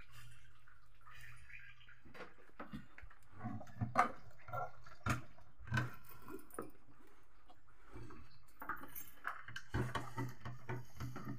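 A pot of macaroni soup bubbling over a wood fire for about two seconds, then a string of irregular light knocks, rustles and clatter as children handle and pack their school backpacks.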